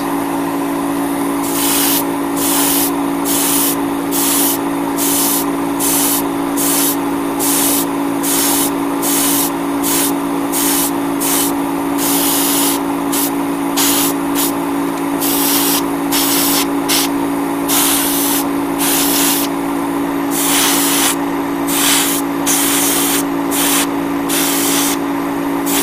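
Iwata Neo airbrush spraying in short hissing bursts, about one a second, as the trigger is pulled and released while coating a model part. A steady motor hum runs underneath.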